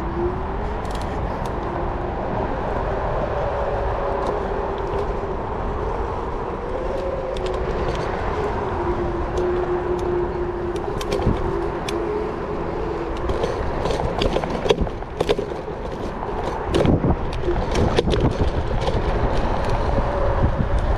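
Techlife L5 electric scooter riding over a bumpy dirt trail: a faint motor whine drifting in pitch with speed, over tyre rumble and wind on the microphone. Rattling clicks and knocks from the frame over bumps, thickening in the second half.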